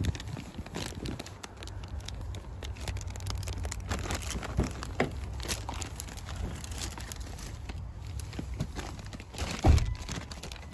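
Large plastic bags of Oxbow hay crinkling and rustling as they are handled and loaded into a car, with a low rumble of handling noise and a louder thump near the end.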